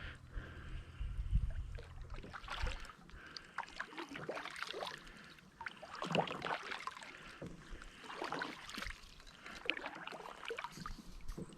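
Paddle strokes in water from a small boat, a splash about every one and a half to two seconds. A low rumble runs through the first few seconds.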